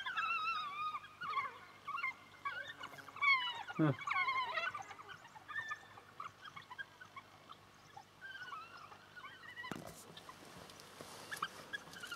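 African wild dogs twittering: a chorus of high, wavering chirps and squeaks, busiest in the first few seconds and thinning out after. A single knock comes about ten seconds in.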